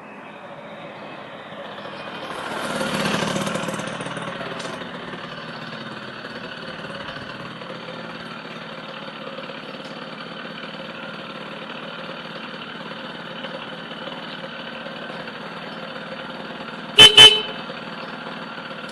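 Suzuki FZ50 moped's small two-stroke engine idling steadily, swelling briefly about three seconds in. Near the end the horn gives two short toots.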